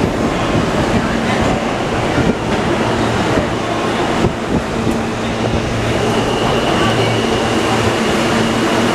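New York City subway train at the platform, a steady hum with a high whine that sets in about halfway, over the noise of a crowded station.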